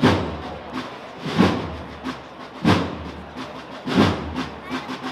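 Band drums beating a slow, steady processional cadence between marches, one heavy stroke about every 1.3 seconds, each ringing out before the next.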